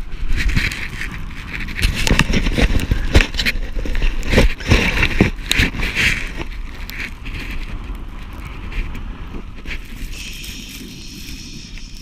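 A person being dragged on a rope through deep snow: a rough rush of snow spraying and scraping, with wind buffeting the microphone and many knocks and thumps. It is loudest in the first half and eases off near the end.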